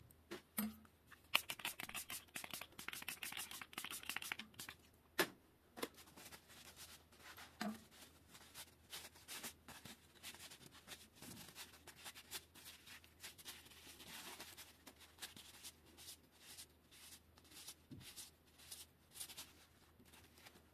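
Paper towel rubbing over a steel 160 mm bicycle disc brake rotor in quick scratchy wiping strokes, with a few sharp clicks. The rotor is being degreased.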